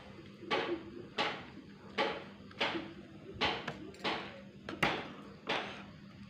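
A metal spatula scraping a wok in regular strokes, about three every two seconds, as fried rice is stir-fried. A steady low hum lies underneath.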